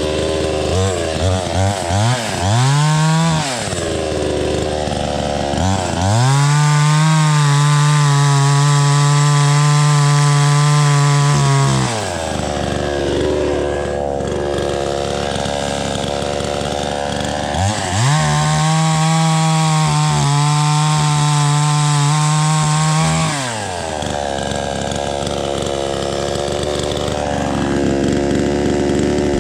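Small two-stroke gas chainsaw idling, blipped a few times, then held at full throttle twice for about six seconds each while cutting through tree limbs, dropping back to idle in between and at the end.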